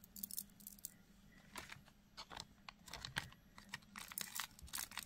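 Faint, irregular clicks and rustles of a strand of 8 mm black agate beads being handled and slipped back into their small plastic bag, the stone beads knocking against each other.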